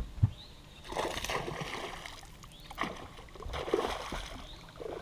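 A hooked bass splashing at the surface in several bursts as it is fought on the line, with a sharp thump just after the start.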